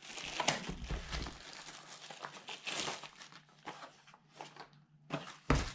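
Clear plastic wrapping crinkling and tearing as it is pulled off a small cardboard accessory box, in irregular rustles with small clicks. Two sharp knocks near the end.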